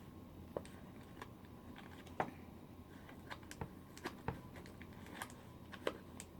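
Faint, scattered light clicks and crinkles of small plastic toy packaging being opened and handled, about a dozen separate ticks at an uneven pace.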